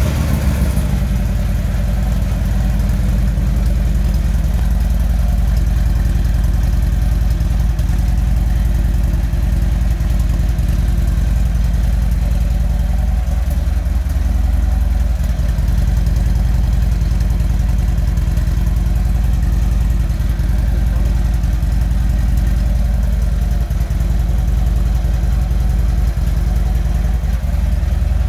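Harley-Davidson touring motorcycle's V-twin engine idling steadily, its exhaust pulsing evenly from the chrome mufflers.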